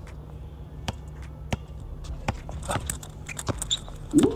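Basketball being dribbled on an outdoor hard court: a handful of separate bounces, each a little under a second apart.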